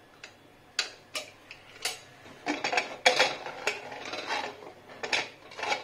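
Metal cookware and utensils clanking and clinking against each other, about a dozen sharp, irregular knocks, some ringing briefly.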